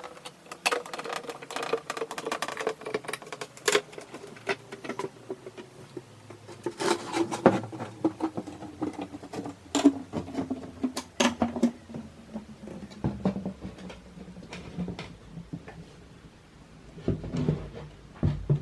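Skateboard wheel spun by hand, its bearings whirring with a hum that slowly drops in pitch as the wheel coasts down, with scattered clicks and knocks of the board and parts being handled.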